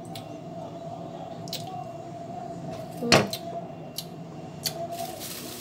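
Kitchen handling sounds: a few light clicks and taps, with one sharper knock about three seconds in, over a steady low hum.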